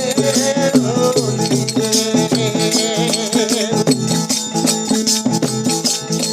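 Instrumental interlude of a devotional folk bhajan: a wavering melody over a steady drone, with fast rattling hand percussion.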